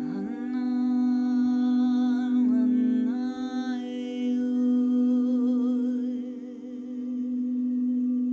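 Crystal singing bowl ringing in one steady low tone while a voice hums a wordless, gliding melody over it. The humming wavers and fades out about three-quarters of the way through, leaving the bowl's tone.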